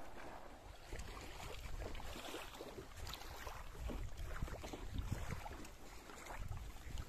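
Wind buffeting the microphone, under frequent small clicks and rustles from rigging a windsurf sail by hand: the downhaul rope being pulled through the fittings at the mast foot and the sail cloth moved about.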